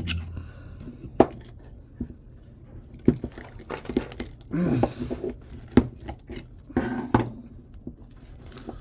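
Copper winding wire being pulled and pried by hand out of an electric motor's stator: scattered sharp metallic clicks and scrapes.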